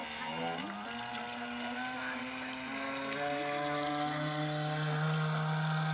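Brushless electric motor of a converted T2M Barracuda RC speedboat running, its whine shifting up and down in pitch with the throttle during the first few seconds, then holding a steady tone from about halfway.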